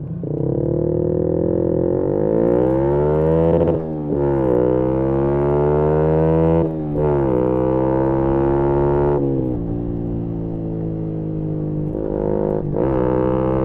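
Yamaha MT-125's single-cylinder four-stroke engine through a GPR aftermarket exhaust, accelerating hard through the gears. The pitch climbs and drops sharply at upshifts about four, seven and nine seconds in, then holds steadier, with one more brief dip near the end.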